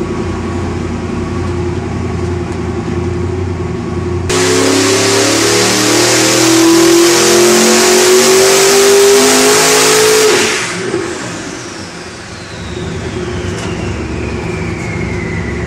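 509-cubic-inch twin-turbo big-block Chevy V8 on an engine dyno, running steadily at low speed, then about four seconds in going to full throttle for a pull. The engine pitch climbs steadily for about six seconds to around 5,400 rpm. Then it is shut off and falls back to idle, while a long falling whistle sinks away as the turbochargers spin down.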